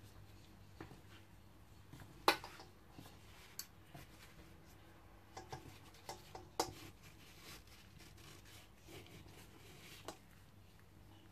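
Kitchen knife blade tapping and scraping against a wooden cutting board through a cloth, with soft rubbing of the cloth between the taps. The sharpest knocks come about two seconds in and again past six seconds.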